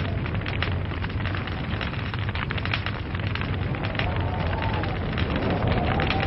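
Burning logs crackling: a dense, irregular run of sharp pops and snaps over a steady low rumble of the fire.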